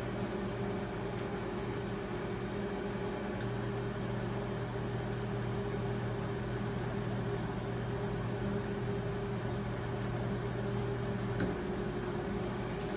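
Brastemp Clean BMP31 microwave oven, built by Samsung in 1996, running on its auto reheat cycle: a steady hum with a fan-like whoosh and a few faint ticks.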